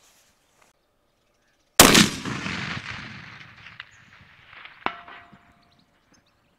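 A 300 PRC rifle fired without its muzzle brake, a single sharp report about two seconds in, with a long rolling echo. About three seconds later comes a faint ping of the bullet striking the distant steel gong, ringing briefly.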